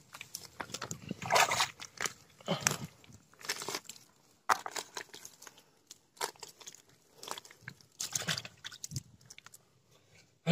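Hands squelching and tearing through wet, sticky paddy mud in irregular bursts with short gaps between them, as an eel burrow is dug open by hand.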